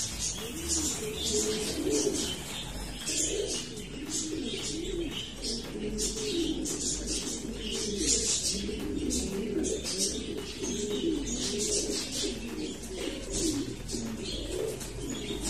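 Racing pigeons cooing over and over in low, wavering calls, with short high chirps and ticks scattered throughout.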